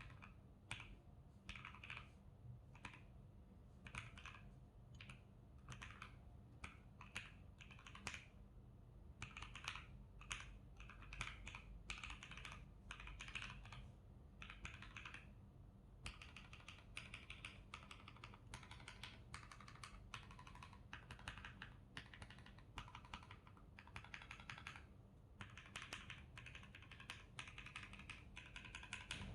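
Typing on a DNA59 mechanical keyboard kit with Akko CS Starfish linear switches lubed with 205g0 and Akko ASA-profile keycaps. There are runs of quick key presses and a short pause about halfway through.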